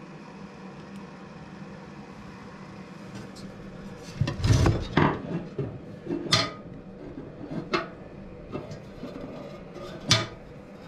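Snap-ring pliers and a steel snap ring clicking and clanking against the metal shaft and frame of a rotary rock tumbler as the ring is fitted. A cluster of sharp metal clinks comes a few seconds in, then three more single clicks spread over the rest.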